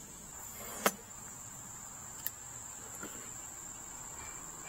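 A steady high-pitched whine or trill in the background, with a sharp click about a second in and a fainter tick a little after two seconds as hands handle the plastic case of a portable power station.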